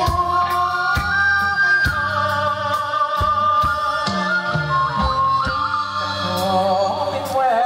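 A live band playing folk-style music: a drum kit beating under a held, sustained melody, with bass and guitars.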